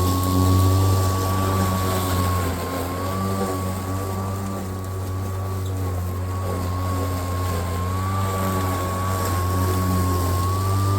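Greenworks Pro battery-powered lawnmower running while mowing, a steady low hum under a thin high whine whose pitch sags and recovers slightly a few times.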